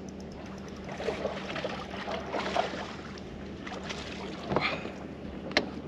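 A hooked bass being netted beside a boat: irregular splashing and sloshing of water at the hull, with two sharp knocks near the end, over a steady low hum.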